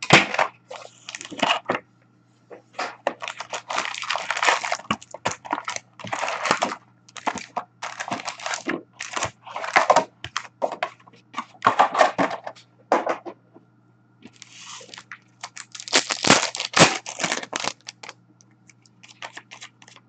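A hockey card hobby box being torn open and its foil-wrapped card packs handled and ripped open, in irregular bursts of crinkling and tearing with short pauses between them.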